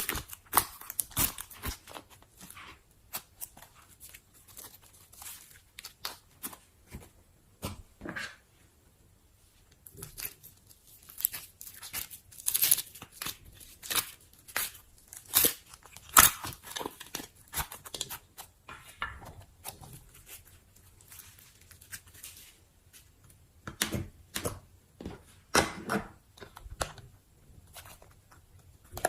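Slime being poked and pulled by hand: irregular sharp sticky pops and clicks, some in quick clusters, with short quiet gaps between.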